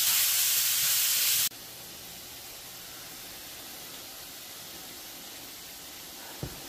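Shaved steak with onions and bell peppers sizzling in a frying pan, a loud high hiss that cuts off abruptly about a second and a half in. A fainter steady hiss follows, with a small knock near the end.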